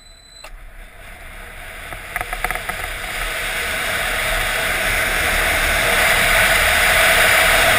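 Wind and road noise rushing past the onboard camera of the Ohio State Buckeye Current RW2 electric motorcycle, growing steadily louder as the bike accelerates away. There is no engine note, because the electric drive is nearly silent.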